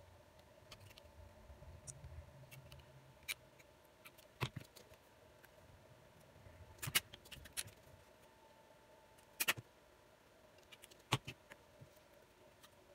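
A quiet steady hum broken by several small sharp clicks and taps of handling at a workbench, the loudest a quick double click about seven seconds in and another around nine and a half seconds in.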